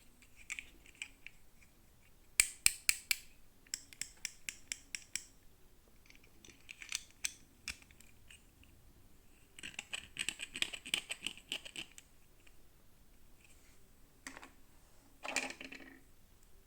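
Toy packaging being handled and opened: bursts of sharp clicks and crackly scraping, the loudest a quick run of snaps a couple of seconds in, with a denser crackling spell a few seconds later.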